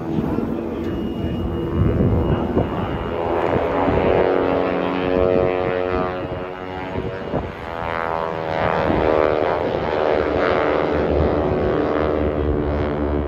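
Engines of a formation of aerobatic airplanes flying loops overhead, a continuous drone whose pitch sweeps up and down as the aircraft pass.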